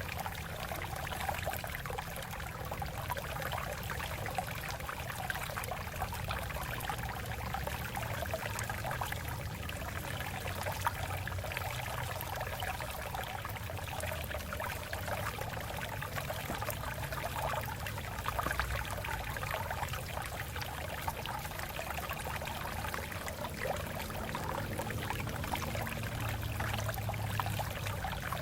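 Water flowing steadily over rocks, a continuous splashing and gurgling rush.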